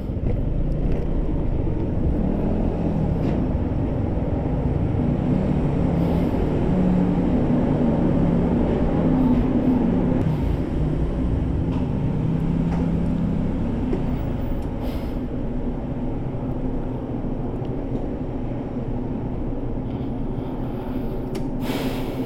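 Vehicle engine running with a low rumble, its pitch wavering up and down in the first half, with a short rattle near the end.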